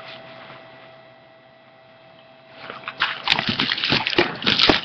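Quiet for about two and a half seconds, then a burst of crinkling and rustling plastic with sharp clicks, as a plastic bottle or packaging is handled.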